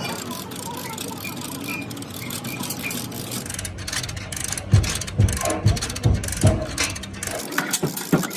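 Steady background noise, then a run of heavy low thumps about twice a second, giving way near the end to quicker, lighter knocks about three a second.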